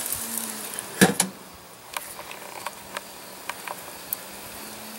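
Bacon-wrapped chicken sizzling over charcoal. About a second in, the grill's steel lid closes with one loud clunk. After that the sizzle is muffled and only a few light scattered ticks remain.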